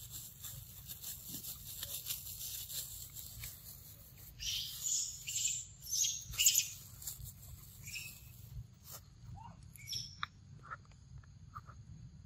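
Outdoor forest ambience without speech. Scratchy rustling comes in bursts about halfway through. A handful of short high chirps follow in the second half, and a thin steady insect whine runs near the end.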